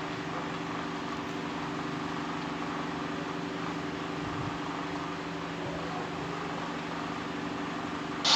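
Steady low hum made of several fixed tones, over an even hiss, with no distinct events.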